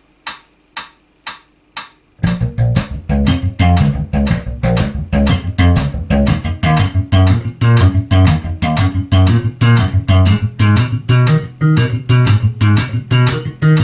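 A metronome clicks about twice a second. About two seconds in, a Sandberg MarloweDK electric bass joins, slapped with the double-thumb technique in a fast run of triplets over the click, cycling through minor-triad notes with sharp percussive attacks.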